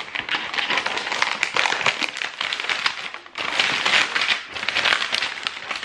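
Clear plastic film wrapping on a toy egg being cut with scissors and pulled away, crinkling and crackling, with a brief lull a little over three seconds in.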